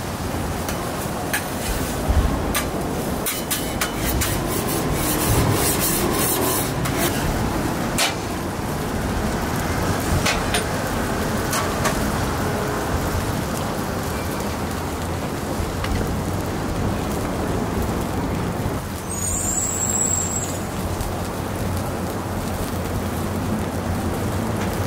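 Okonomiyaki sizzling on a large flat-top griddle as a steady rushing hiss. A metal spatula clicks and scrapes on the steel plate, mostly in the first several seconds. A brief high-pitched squeak or beep comes near the end.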